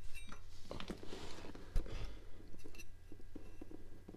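Hands working a greased oil seal onto the rear output shaft housing of a Datsun 240Z four-speed transmission: soft rubbing and small clicks, with one dull thump about two seconds in.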